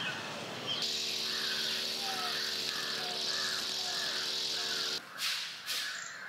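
A string trimmer runs steadily, with birds chirping over it. About five seconds in this gives way to a series of broom strokes scrubbing a wet floor.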